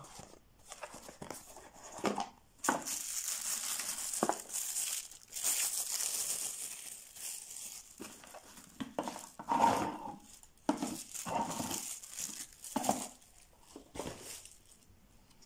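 Cardboard box and plastic packaging being handled: rustling and sliding for several seconds, with a few sharp clicks and light knocks.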